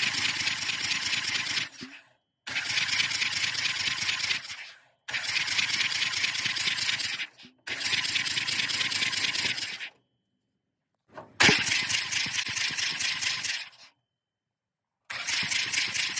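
Cummins 6AT diesel engine cranked over on its starter for a compression test, in six bursts of about two seconds, each with a fast, even clatter. Each burst cuts off abruptly.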